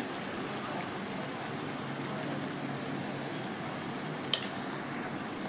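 Tomato and peanut chutney paste bubbling and sizzling steadily in oil in a kadhai over a gas flame. A single small click comes about four seconds in.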